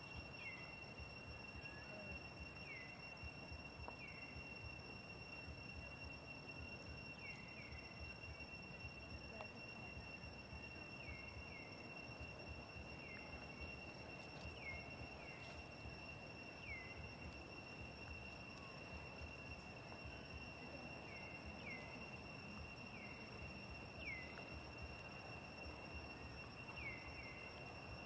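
Faint outdoor ambience of insects: a steady high-pitched drone, with short falling chirps every second or two, over a low rumble.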